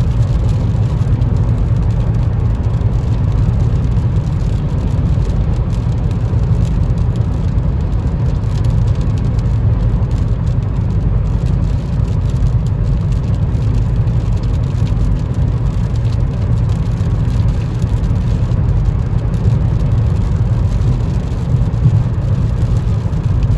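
Steady cabin noise inside a 2023 Nissan Versa S at highway speed in rain and gusty wind: a constant low rumble of tyres on wet road with wind rushing along the side of the car. The wind is not very loud.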